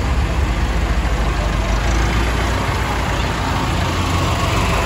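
Tractor diesel engine running at low speed as a light-decorated tractor drives slowly past close by, giving a steady low engine throb.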